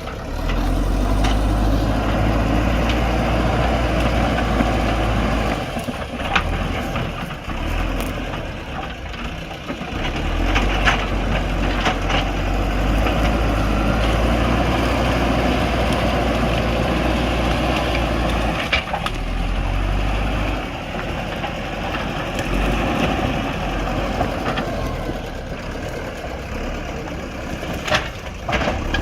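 JCB backhoe loader's diesel engine running under working load, its low drone swelling and easing several times as the machine works. Scattered sharp cracks and knocks sound over it.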